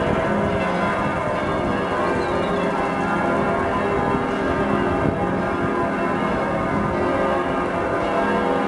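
Full peal of the Munich Frauenkirche's church bells: several large bells swinging and ringing together, their strokes overlapping in a continuous, steady clangour.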